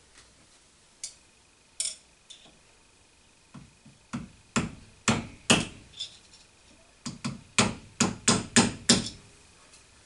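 Hammer and punch tapping on the mill quill's spindle bearing nut to set the bearing preload: a few scattered metallic taps, then a run of about six at roughly two a second, a short pause, and a faster run of about nine taps.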